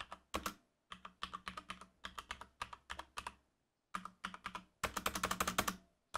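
Typing on an XPG Summoner mechanical keyboard with linear Cherry MX Speed switches, very quiet key presses. The clicks come at an uneven pace, pause briefly, then speed up into a fast flurry about five seconds in.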